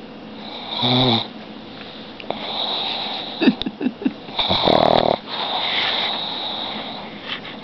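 A pug snoring in its sleep: raspy, buzzing snores on the in-breaths alternate with wheezy breaths. The loudest snore comes about four and a half seconds in.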